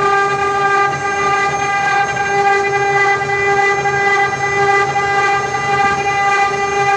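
Spindles of a multi-spindle CNC router running and carving relief patterns into wooden panels: a steady high-pitched whine with a rough cutting noise underneath.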